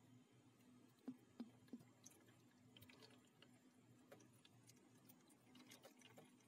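Near silence: a faint, steady low hum of a small air-conditioner condensate drain pump, running quietly with scattered faint ticks and drips of water.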